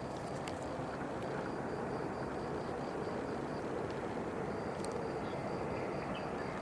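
Steady outdoor background noise, an even rumbling hiss like distant traffic, with a faint high pulsing tone running through it.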